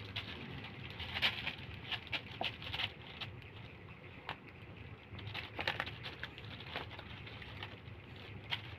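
Black plastic bag crinkling and rustling in short, irregular bursts as kittens wrestle and scramble on it, over a low steady hum.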